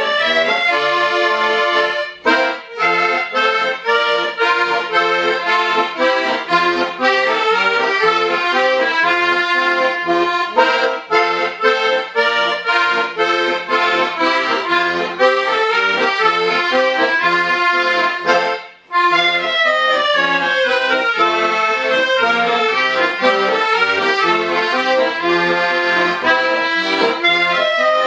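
Accordion ensemble playing a lively folk dance tune in quick runs of notes, with two short breaks in the music, about two seconds in and near nineteen seconds.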